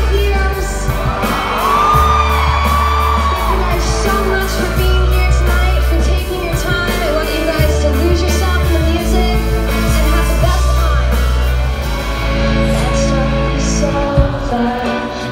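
Live pop-rock concert: a female lead singer with a full band of drums, bass, electric guitars and keyboards, heard from the audience in a large hall. Near the end the music cuts to a different song.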